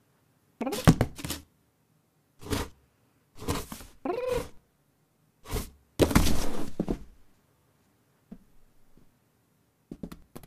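Cardboard box knocked and shuffled about by a cat moving inside it: a string of short thumps and scrapes with pauses between them. About six seconds in comes the loudest, longest scraping tumble, as the box tips over.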